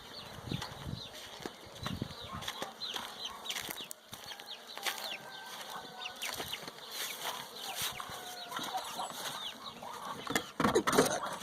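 Chickens clucking and calling, with many short high chirps throughout and a louder rustling burst near the end.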